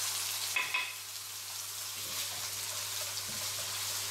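Asparagus and salmon sizzling steadily in hot olive oil in a wok, with a brief metallic clink about half a second in.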